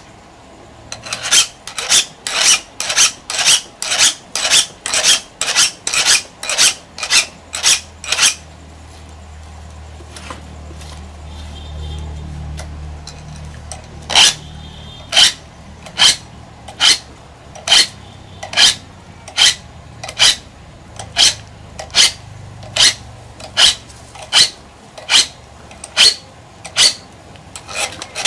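A hand file drawn in rhythmic scraping strokes across saw teeth, sharpening the saw, about one and a half to two strokes a second. The filing stops for several seconds partway through while a low rumble rises and fades, then goes on at a slightly slower pace.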